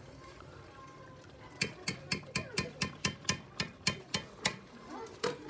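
Metal spoon clinking against the sides of an aluminium cooking pot as rice is stirred. There is a quick run of about a dozen clinks at roughly four a second starting about a second and a half in, then one more near the end.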